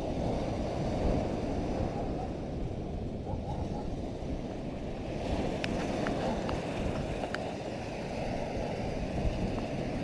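Sea surf breaking on a sandy shore, with wind buffeting the microphone as a steady low rumble. A few faint ticks come in the second half.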